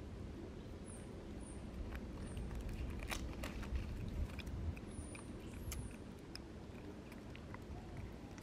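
Long-tailed macaques chewing and nibbling food: scattered small clicks and crunches over a low rumble. A few short, high chirps come through about a second in, about two seconds in and again around five seconds in.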